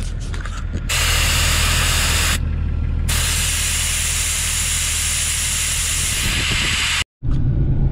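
Air hissing out of an off-road tire through a tire deflator with a gauge on the valve stem, airing the tire down. It comes in two releases: a short one of about a second and a half, then after a brief pause a longer one of about four seconds.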